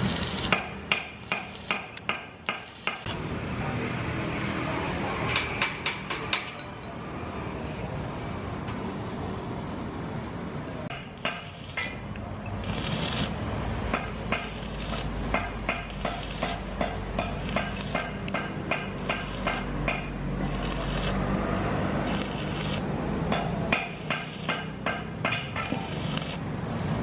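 A hammer repeatedly striking metal while the stand's steel parts are worked, in runs of sharp blows about two to three a second, with pauses between the runs.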